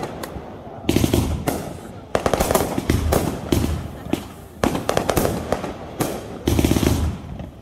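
Aerial fireworks firing and bursting: volleys of sharp bangs and pops in quick succession, several shots to each volley, with quieter crackling between volleys.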